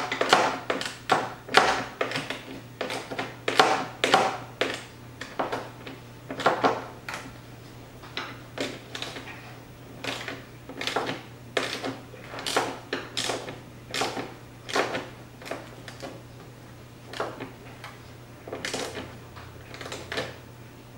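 Quarter-inch drive ratchet clicking in short bursts, about two to three swings a second, as it tightens a 10 mm nut onto a duct stud. The clicking thins out with brief pauses toward the end as the nut snugs up.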